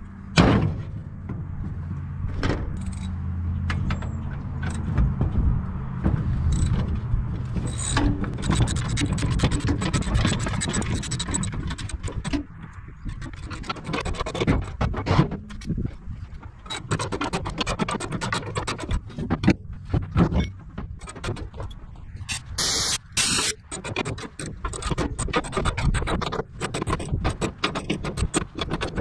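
Scissor jack being cranked by hand with a long handle, its screw and steel arms scraping and clicking rapidly as it is wound. A low steady hum sits under the first several seconds, and two short loud rushes of noise break in a little past the middle.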